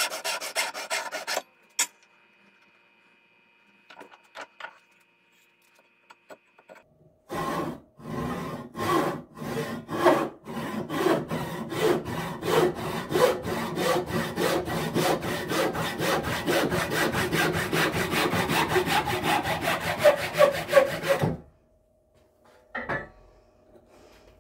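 Crosscut handsaw cutting through a small softwood board in quick, even strokes. There is a short run of strokes at the start, then a pause of several seconds. Sawing resumes about seven seconds in and stops suddenly near the end as the blade cuts through, followed by a single knock.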